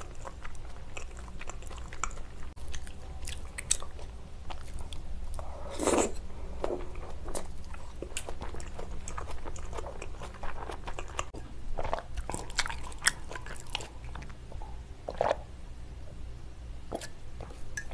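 Close-miked chewing of raw salmon sashimi: wet mouth smacks and many small clicks throughout, with a brief vocal sound about six seconds in.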